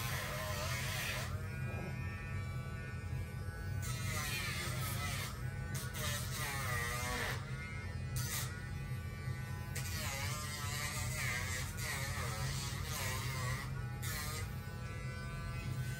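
Dremel rotary tool running with a steady buzzing hum while it grinds a dog's toenails. Stretches of hissing grinding noise come and go whenever the bit touches the nail.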